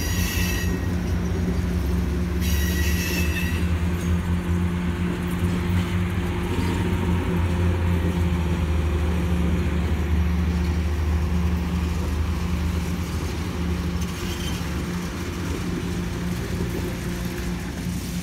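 Passenger cars of a diesel-hauled excursion train rolling past with a steady low rumble and hum. Brief high-pitched wheel squeals come at the start and again about three seconds in.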